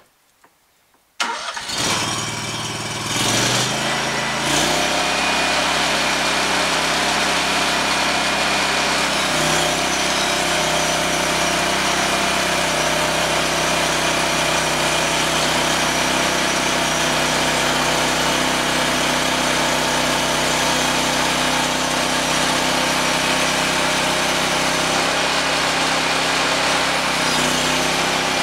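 Petrol engine of a portable band sawmill starting: it catches about a second in, its pitch climbs for a few seconds, then it runs at a steady speed.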